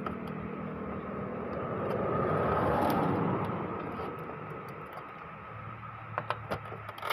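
A passing vehicle: a rush of noise that rises and fades, loudest about two to three seconds in, over a steady background hum. A few faint clicks near the end from the printer's plastic roller parts being handled.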